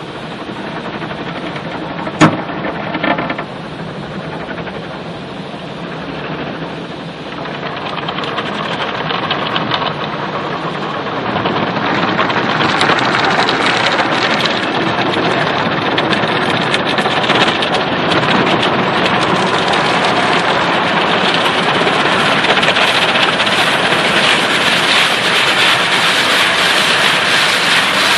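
Automatic car wash spraying water onto a car's body and windows, heard from inside the cabin as a steady wash of noise. There is one sharp knock about two seconds in, and the spray grows louder around ten to twelve seconds in.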